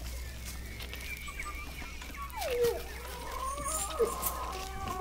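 Dog whining: several drawn-out high calls, some held and some sliding down in pitch. Faint crackle of a plastic sheet under a fish being handled.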